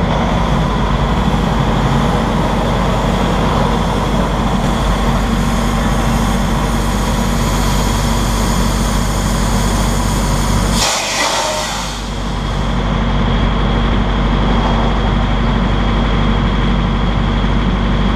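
Diesel semi-truck pulling a refrigerated trailer, running at low speed and then idling, a steady mechanical drone. About eleven seconds in comes a short, sharp hiss of air, typical of the air brakes being set as the rig stops.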